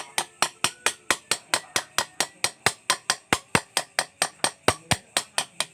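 Chisel being tapped with a small hammer, engraving a pattern into a metal motorcycle engine casing: sharp, even metallic taps at a steady rate of about four to five a second.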